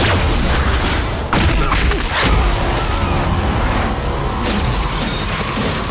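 Trailer sound design: heavy booming hits over a dense, bass-heavy music bed.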